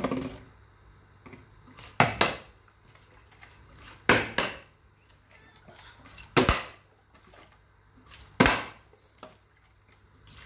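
Plastic water bottle being flipped and landing on a ceramic tile floor in repeated bottle-flip attempts: a sharp knock about every two seconds, one of them a quick double knock.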